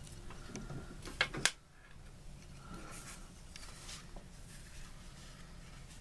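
Fingers brushing and scraping a cardboard scratch-off lottery ticket, with two sharp taps on the card just over a second in; after that only faint room noise with a few soft ticks.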